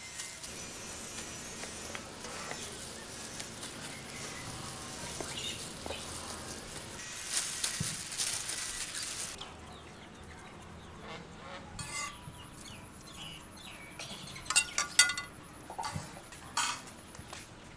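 Plastic-gloved hand mixing thin slices of raw beef in marinade on a plate: soft rustling and squelching that stops about halfway through. Several sharp clicks follow near the end.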